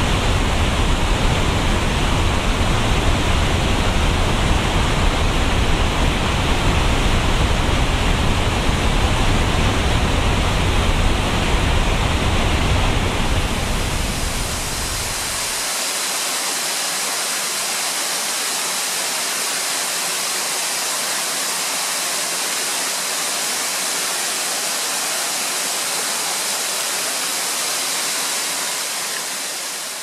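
Waterfall noise throughout. First a tall, 70 m waterfall gives a steady, deep rush of falling water. About halfway through it changes to a lighter, hissier rush of a cascade over rock steps with no deep rumble, which fades near the end.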